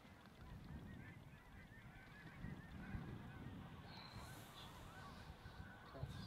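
Faint, continuous chorus of many waterfowl calling from large flocks in the air, a jumble of short overlapping calls, with gusts of wind rumbling on the microphone.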